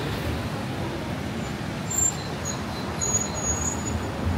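Steady city street traffic noise with a low rumble of passing vehicles, and a short sharper sound about two seconds in.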